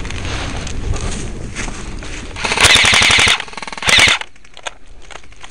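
Airsoft electric rifle, an ICS AK-74, firing on full auto: a rapid mechanical rattle of shots in a burst of just under a second about two and a half seconds in, then a second short burst about a second later. Before the bursts there is rustling and handling noise.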